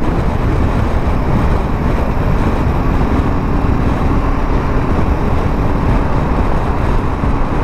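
BMW G310 GS motorcycle riding along a road, its engine and the road and air noise making a steady, even rush.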